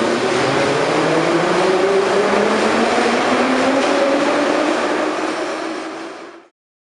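A moving vehicle, its engine or motor note rising slowly under a loud rushing noise as it gathers speed, cut off abruptly near the end.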